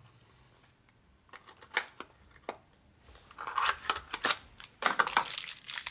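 A new needle bearing being unpacked: its small cardboard box and paper wrapping handled and opened, a run of light clicks and crinkly rustles starting about a second in and getting busier toward the end.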